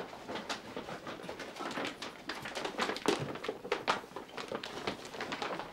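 Irregular rustling, clicks and small knocks of papers and belongings being handled and packed up, with a sharp knock at the start.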